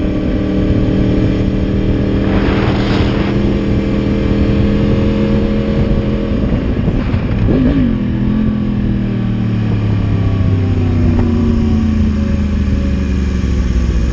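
Motorcycle engine running at a steady speed, then its pitch falls gradually over the second half as the bike slows.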